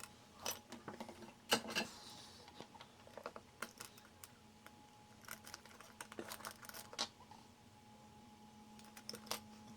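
Scattered light clicks and taps of small hand tools such as tweezers on a phone circuit board during charging-port replacement. A faint steady hum runs underneath.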